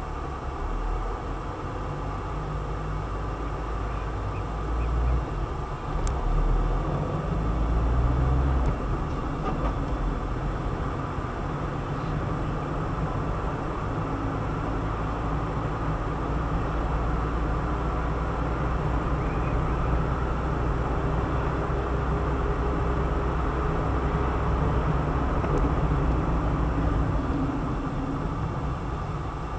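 Car engine and tyre noise heard inside the cabin as the car pulls away from a stop and drives on at about 30 km/h: a steady low rumble, a little louder in the first several seconds while it speeds up.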